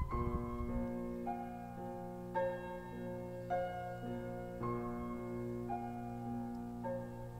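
Background piano music: slow, sustained chords, with a new chord struck about once a second.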